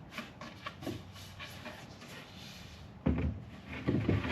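Wood panels being handled as fixed shelves go into a plywood cabinet box: faint light clicks and taps, then about three seconds in a sudden loud wooden knock followed by more knocks and scraping.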